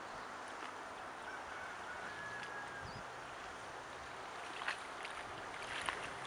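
Distant HDX T9.8 two-stroke outboard motor droning faintly under a steady background hiss, with two short sharp ticks near the end.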